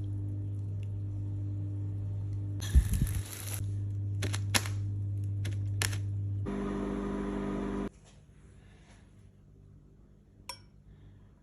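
Microwave oven running with a steady low hum, a burst of noise and a few clicks about three seconds in, a fuller hum for a moment, then cutting off suddenly near eight seconds; a single click follows later.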